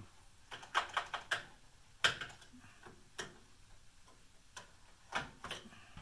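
An insulated screwdriver's metal tip clicking and tapping against the microwave capacitor's terminals and the grounded metal chassis while the capacitor is being shorted out to discharge it. There is a quick run of clicks about a second in, the sharpest click about two seconds in, and a few scattered taps after that.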